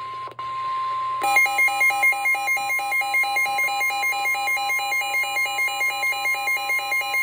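Emergency alert attention tones: a steady single beep near 1 kHz, joined about a second in by a louder pulsing alarm tone that beeps about four times a second. It is the alert signal that heralds a broadcast severe thunderstorm warning.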